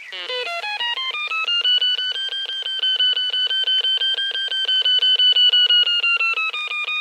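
Ferret Finder locator giving a rapid pulsing electronic beep. The pitch climbs steeply in the first second, then holds high and steady, dips slightly near the end and rises again as it picks up the transmitter on the drain rods; a higher note means a stronger signal.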